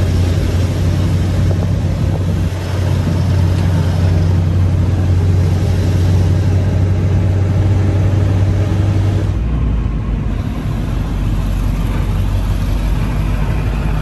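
Car driving with a steady low engine and road drone heard from inside the vehicle, with a noise of rushing air above it; about nine seconds in the drone drops to a lower pitch.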